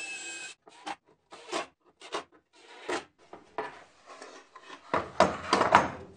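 A cordless driver whirs briefly at the start as it finishes driving a screw. Then comes scraping and knocking as the wooden jig is handled and turned over on the saw table, with a cluster of loud wooden clunks near the end as it is set down.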